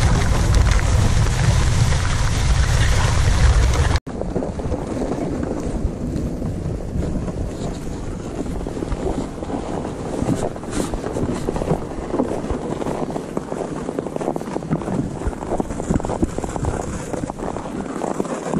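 Wind buffeting the microphone for the first few seconds. After a sudden cut, a steady gritty scraping with small irregular crackles: an ice-fishing sled dragged on a rope over crusty snow-covered ice.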